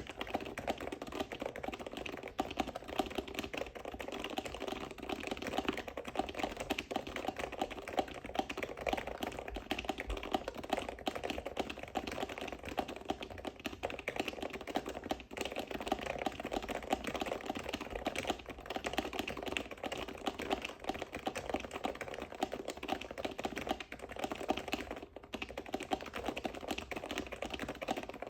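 Steady, fast typing on a Topre electro-capacitive keyboard with HiPro keycaps and old PRO2 rubber domes: a continuous run of keystrokes.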